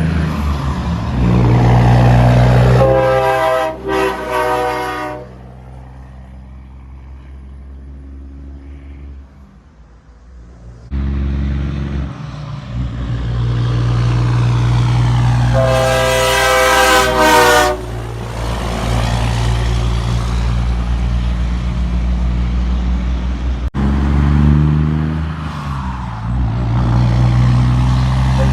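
Kenworth semi truck's diesel engine running, with its air-powered train horn blown in loud multi-note blasts: once about three seconds in, with a short break, and again around sixteen seconds in for about two seconds. The engine sound drops lower for several seconds in between.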